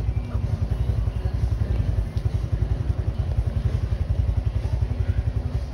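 Motorbike engine running with a steady, rapid low pulsing beat.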